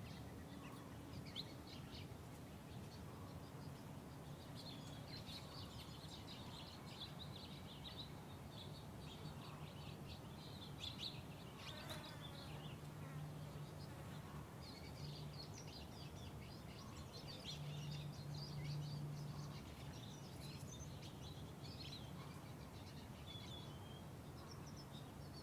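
Faint, rapid high chirping of small birds over a low steady hum that swells a little twice midway.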